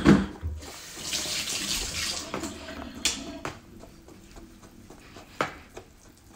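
Wire whisk beating wet pancake batter by hand in a bowl: a wet swishing, loudest in the first few seconds and then quieter, with scattered clicks of the whisk against the bowl.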